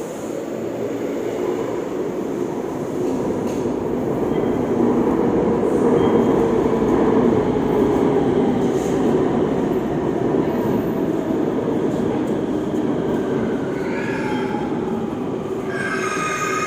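LRT-1 4th generation light rail train pulling in: wheel-on-rail rumble grows louder, peaks about halfway and eases off. Near the end the Mitsubishi IGBT-VVVF traction motors give a falling whine as the train slows, then high squealing tones set in as it brakes.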